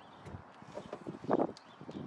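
Irregular knocks and clunks of hand tools and metal parts while a brake caliper bolt is worked with a socket and ratchet, with a louder cluster of clunks a little past halfway.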